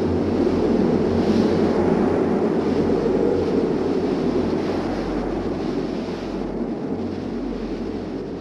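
Wind buffeting the camera's microphone: a steady low rushing rumble that eases a little in the second half.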